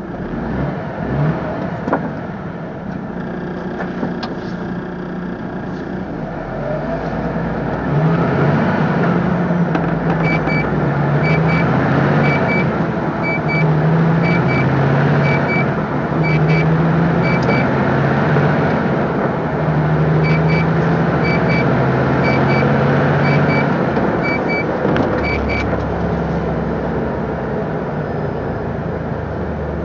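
MAN TGS 26.320 lorry's six-cylinder diesel engine heard from inside the cab, pulling and picking up speed, louder from about eight seconds in, with road noise. A high double tick sounds about once a second in two spells through the middle.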